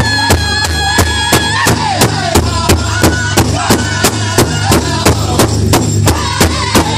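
Pow-wow drum group: several singers striking a large pow-wow drum in unison with a steady beat of about three strokes a second, singing together over it in high voices. A long high held note falls away about a second and a half in.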